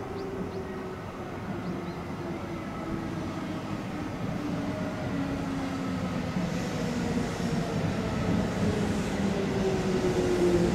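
Kintetsu electric train coming in to stop, its running rumble growing steadily louder. Several humming tones from its motors fall slowly in pitch as it brakes.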